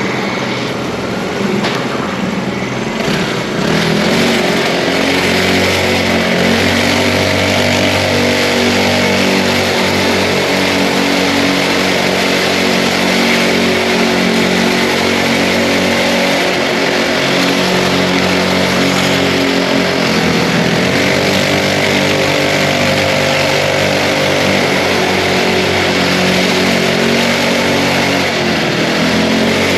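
Mini bike's small engine running while riding, its pitch rising and falling as the throttle changes, with a marked dip about two-thirds of the way through.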